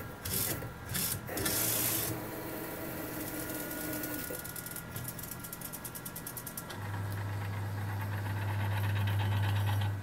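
MP5i inkjet printer's print-head carriage making quick back-and-forth passes, each a loud swish, then driving off along its rail partway through the print, which the owner reports as the carriage running all the way to the side mid-print. A run of fast ticks follows, then a loud steady low hum from about seven seconds in.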